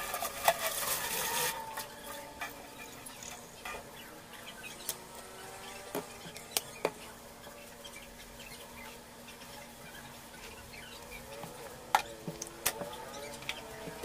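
Tap water splashing onto a cloth as it is rinsed and wrung out over a stainless steel sink, stopping after about a second and a half. Then a cloth wiping a granite countertop, with a few sharp clicks and knocks.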